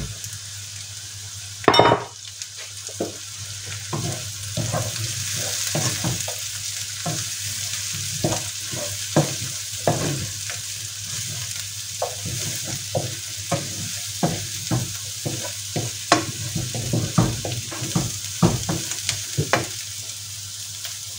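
Broccoli sizzling as it fries in a deep non-stick frying pan: a steady hiss of frying, with frequent knocks and scrapes of a wooden spoon stirring against the pan. One sharper knock comes about two seconds in.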